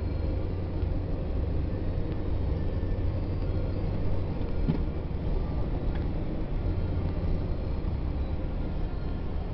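Steady low rumble of engine and tyre noise heard inside a moving car.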